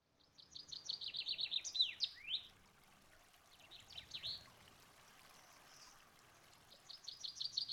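A bird singing. There is a song phrase near the start: a fast run of short, high notes dropping in pitch, ending in a few sweeping whistles. A shorter phrase comes about four seconds in, and the song starts again near the end, over a faint steady hiss.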